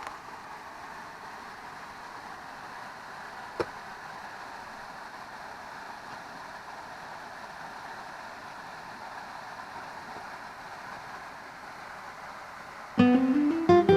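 Mountain stream rushing steadily, with one sharp click about three and a half seconds in. Acoustic guitar music starts near the end.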